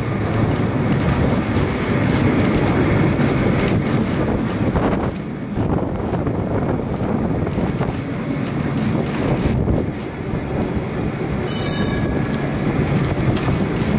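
Street tram running on its rails: a steady rumble of wheels and running gear with clicks over the track, and a brief shrill sound near the end.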